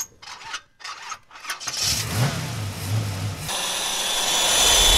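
Intro sound effect of a motor: a few short clicks, then a motor revving up from about two seconds in and settling, about three and a half seconds in, into a loud steady run with a high whine.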